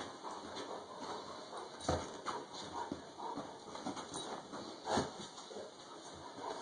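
Large dog clambering over a person in bed: bedding rustling, with two heavier thumps, about two seconds in and about five seconds in.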